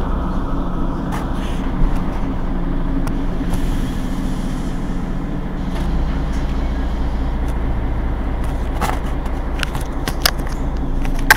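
Mercedes-Benz Citaro G C2 Euro 5 articulated bus's diesel engine idling steadily while the bus stands at a stop, with a few short clicks near the end.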